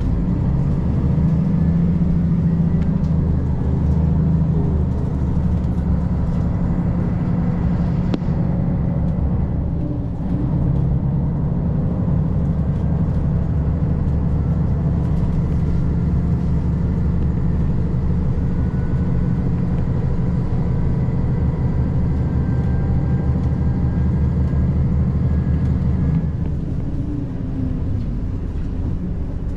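Diesel train running steadily along the line: a constant low engine drone mixed with the rumble of wheels on the rails, a little quieter near the end.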